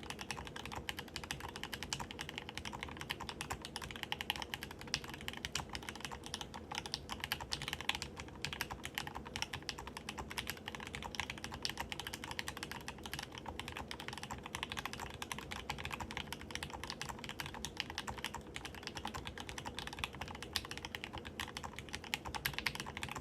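Continuous fast typing on a Mysterium mechanical keyboard: a steady, unbroken stream of key clicks.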